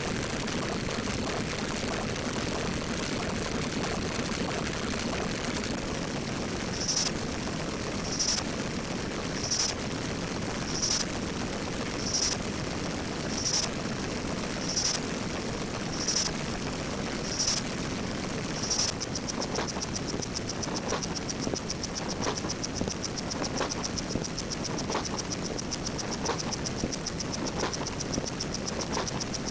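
A dense stack of sound effects playing at once, with a steady noisy drone underneath. From about seven seconds in, a short high beep sounds about every second and a half. Near two-thirds of the way through, the beeping turns into a fast, unbroken train of high beeps.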